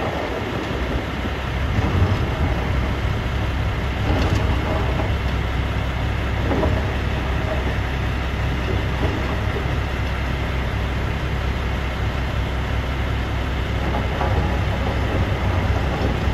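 Heavy diesel machinery running with a steady low rumble, with irregular clattering over it.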